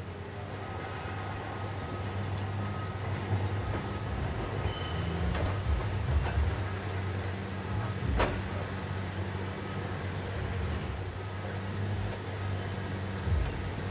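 Diesel engines of heavy construction equipment running steadily, with a single sharp knock about eight seconds in.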